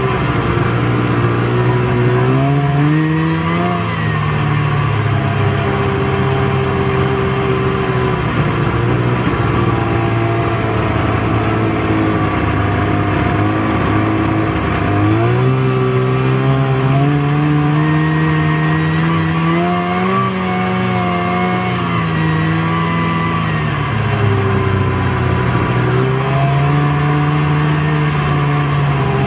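Snowmobile engine running under way, heard from the seat, its pitch rising and falling as the throttle is opened and eased: it climbs about three seconds in, climbs again from about fifteen seconds to a peak near twenty, drops near twenty-four seconds and rises again near the end.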